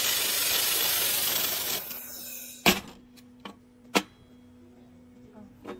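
Handheld fiber laser welder running with a steady hiss as it lays a weld, which stops about two seconds in. Then come four sharp knocks as the welded steel piece is handled on the steel bench, the first the loudest, over a low steady hum.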